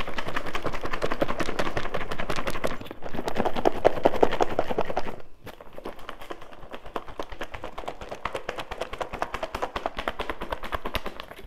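A salad shaken hard in a closed clear plastic takeout container: the lettuce and toppings rattle quickly against the lid and walls. The rattling is loud for the first five seconds or so, breaks off for a moment, then goes on more lightly.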